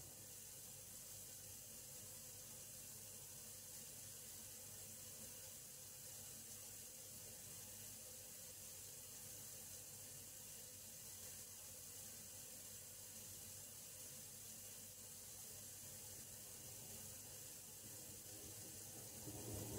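Faint steady hiss of water running through a building's water pipes, left running to keep them from freezing.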